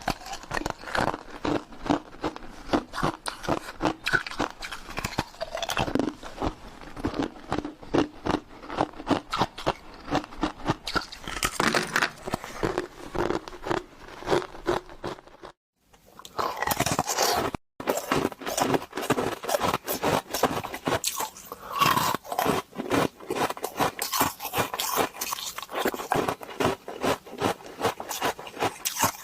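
Ice cubes crunched and chewed close up: a rapid, continuous run of crisp crunches, broken by two brief gaps about halfway through.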